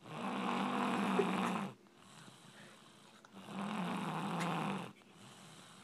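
Snoring: two long snores of about one and a half seconds each, roughly three and a half seconds apart, with quieter breathing in between.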